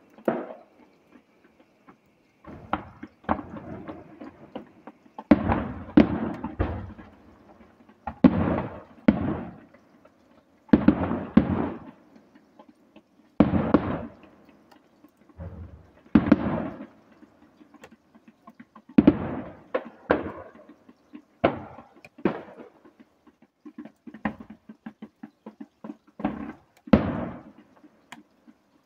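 Professional display fireworks going off in an irregular barrage: loud sharp bangs from shell bursts, often coming in quick pairs and clusters a few seconds apart, each trailing off in echo.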